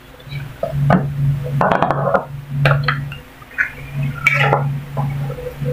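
Metal ladle scraping and clinking against a metal pan as thick stew is scooped out and tipped into a serving bowl, a few separate clinks and scrapes. A low hum comes and goes underneath.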